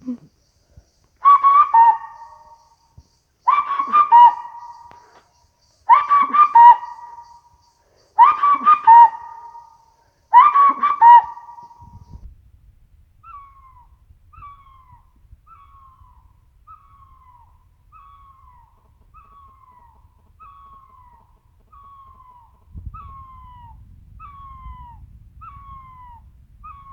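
Bird calls: five loud multi-note phrases about two seconds apart, then a long even run of short, falling whistled notes about once a second.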